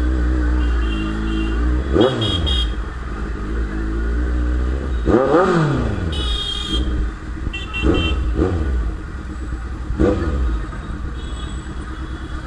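Kawasaki Z900 inline-four with an aftermarket Akrapovič exhaust idling, with about five sharp throttle blips: one about two seconds in, a big double rev near the middle, two quick ones and a last one about ten seconds in. Short horn beeps sound in between.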